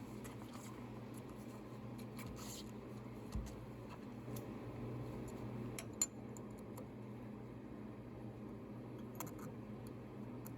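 Scattered light clicks and taps of small objects being handled, with a dull knock about three seconds in and a sharp click about six seconds in, over a steady low hum.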